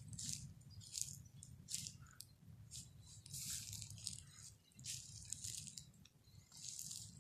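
Footsteps swishing and crunching through dry grass, roughly one step every second, irregular, over a faint low rumble.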